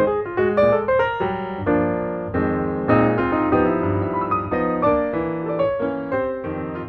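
Background piano music: a melody of quick notes over sustained chords.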